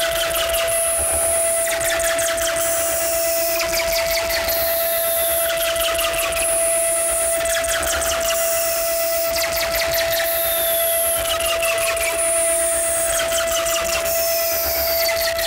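Electronic feedback noise music: a steady held tone under falling pitch sweeps that repeat about every two seconds, with clusters of crackling clicks.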